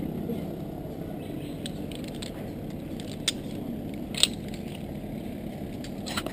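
A steady low rumble with two sharp metallic clicks about a second apart midway, from zipline harness hardware (clips, pulleys) at a platform.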